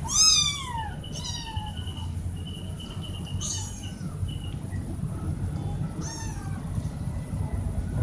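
Cats meowing: one loud meow that slides downward at the start, a shorter one just after, and a few fainter meows later on.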